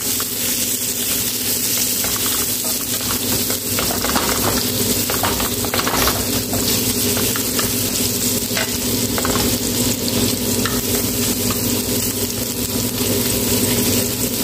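Julienned ginger frying in olive oil in a frying pan, a steady sizzle, with a wooden spatula stirring and scraping across the pan.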